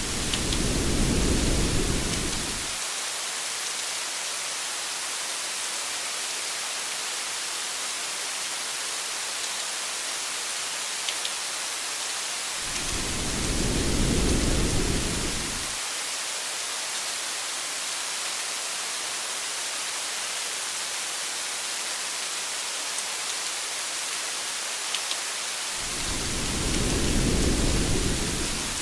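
Steady hiss of heavy rain with three low rolls of thunder, each about three seconds long and evenly spaced: one at the start, one in the middle, one at the end.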